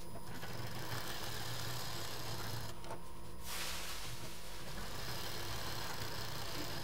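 Domestic sewing machine running, stitching a quilted fabric panel. It stops briefly about three seconds in, then runs again.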